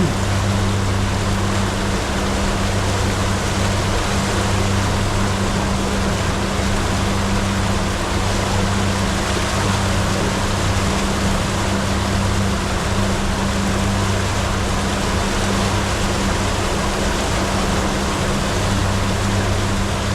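Boat engine running steadily with a deep hum, over a constant rush of water along the hull.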